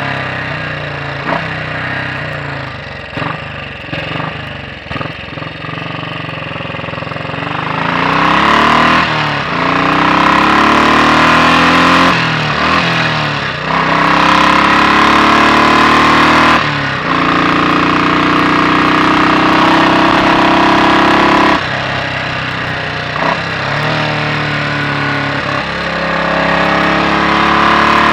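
Royal Enfield Bullet 500 single-cylinder four-stroke engine, with its inlet cam retarded by one tooth, plodding along at low revs. After several seconds it accelerates, rising in pitch, with short breaks at each gear change and a growing rush of wind. About three-quarters of the way through it eases back to a lower, steady note.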